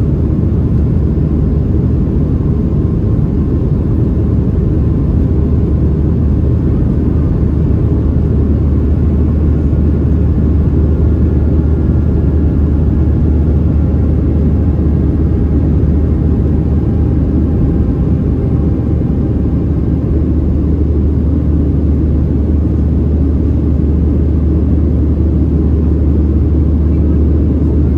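Boeing 737-700 cabin noise during climb-out, heard from a window seat over the wing: a loud, steady, low rumble of the CFM56-7B engines and rushing air. A faint whine comes and goes in the middle.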